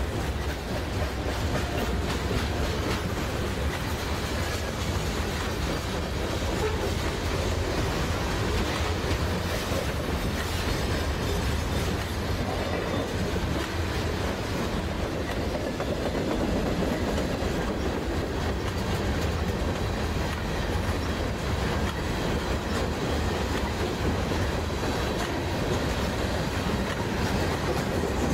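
Freight train of covered hopper cars rolling past close by: a steady, even noise of steel wheels running over the rails, with no horn.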